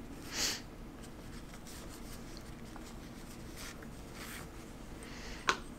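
Quiet handling sounds as the knife's felt pouch is opened: a soft rustle about half a second in, faint rubbing, and one sharp click near the end.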